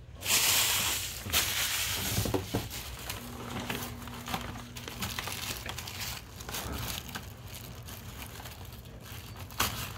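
Plastic wrappers of L.O.L. Surprise doll accessory packets crinkling and rustling as they are unwrapped by hand, loudest near the start.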